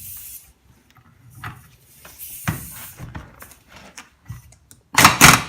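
A few light metallic knocks and clicks, then near the end a 3/4-inch impact wrench cuts in loud, hammering at the 1 1/8-inch end of a Case 480C backhoe hydraulic cylinder. The end is very tight, and the owner suspects red Loctite holds it.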